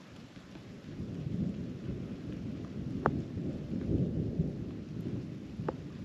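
Thunder rumbling in a rainstorm, a low rumble that swells about a second in and keeps going, with a couple of sharp ticks over it.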